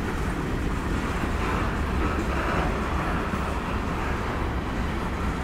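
Freight train of covered hopper cars rolling past, a steady rumble of steel wheels on the rails.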